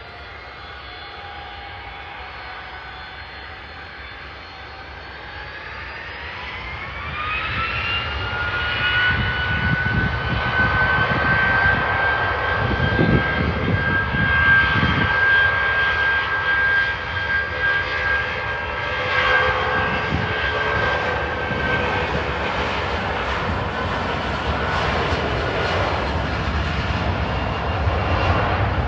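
Boeing 757 freighter's jet engines spooling up to takeoff thrust, with a rising whine about six to eight seconds in. From then on the engines run loud and steady with a high whine as it accelerates for takeoff.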